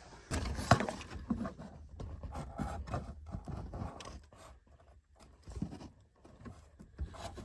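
Hands unplugging plastic wiring connectors behind a car tape deck: irregular clicks, knocks and scraping, with one sharp click about three-quarters of a second in.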